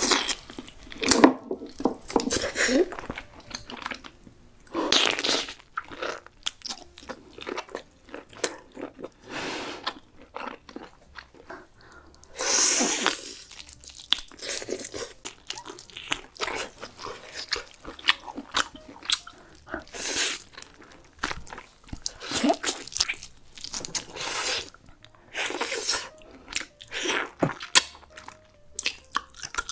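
Close-miked eating of cooked lobster meat: biting and chewing, with many short, irregular mouth clicks and a louder bite every few seconds.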